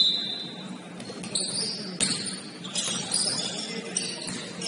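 Basketball game on a hardwood gym floor: sneakers squeaking several times as players run and cut, with the thuds of the ball bouncing. A short, shrill, steady tone sounds right at the start.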